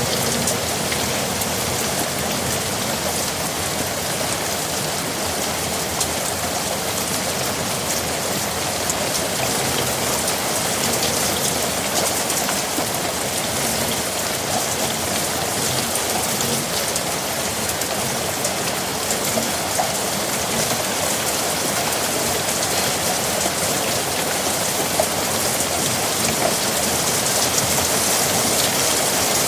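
Steady, continuous rain falling, a dense even hiss with the patter of individual drops on a surface.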